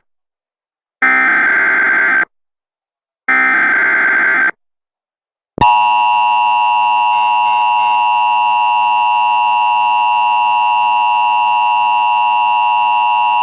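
Emergency Alert System activation: two short bursts of SAME header data, about a second each with gaps of silence, then the EAS attention signal, a steady two-tone alarm that holds unchanged for about eight seconds. It signals an emergency alert, here a tornado warning.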